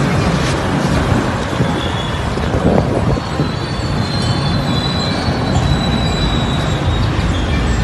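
Steady rumbling noise of a bicycle ride, with wind on the microphone and a few faint, thin high squeaks.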